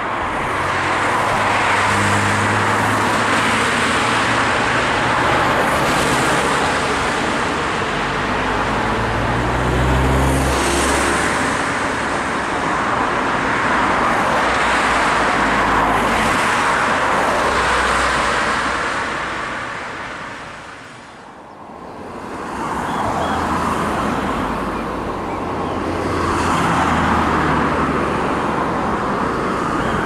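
Road traffic passing close by: car engines and tyres on the road, one vehicle after another. The noise dips briefly about two-thirds of the way in, then more cars pass.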